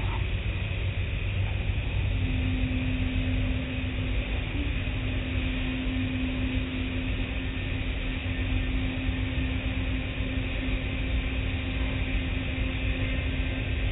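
Automatic car wash tunnel machinery running, with a steady rumble and the hiss of spray. A steady hum comes in about two seconds in and holds.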